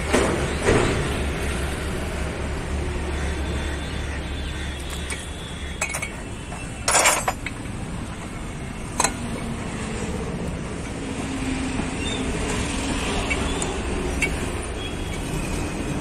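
Scattered sharp metal clanks and clinks from a wrench and a steel support stand being worked against a truck's differential housing, one longer clank about seven seconds in, over a steady background hum.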